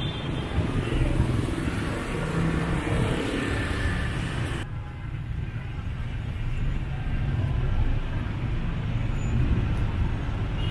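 Busy city street traffic: vehicle engines and tyres running past in a steady rumble. The hiss in the sound drops off abruptly a little under halfway through.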